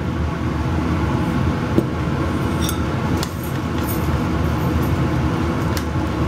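A metal spoon stirring gravy in a skillet, with a few light clinks against the pan, over a steady low background noise.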